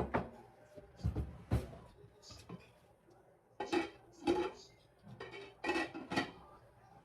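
Cutlery knocking and clinking against a dish, about seven separate strikes spread over several seconds.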